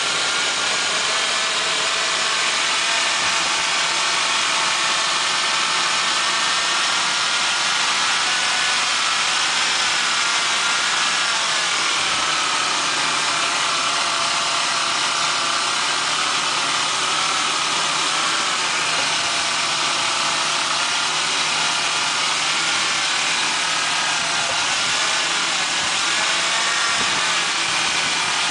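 1999 Ford Explorer's 4.0L OHV V6 engine idling steadily, which the owner suspects has a vacuum leak at the upper intake plenum gasket, causing lean codes on both banks.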